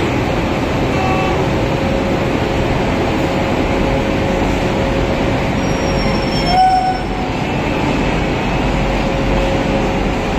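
WAP-7 electric locomotive running its blowers and auxiliary machinery: a steady loud whir with a thin constant tone in it. A brief higher-pitched tone sounds about six and a half seconds in.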